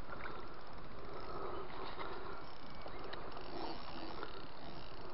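A hooked carp splashing at the water's surface close by, with a steady outdoor noise behind it and a few faint short clicks.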